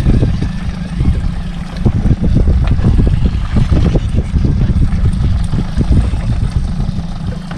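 Wind rumbling on the microphone and water slapping against a small boat's hull at sea: a loud, uneven low rumble broken by many small irregular knocks.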